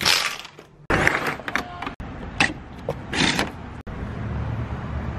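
Venetian window blinds rattling and a window being opened, heard as a few short scraping, rattling bursts. About four seconds in, a steady low outdoor hum comes through the open window.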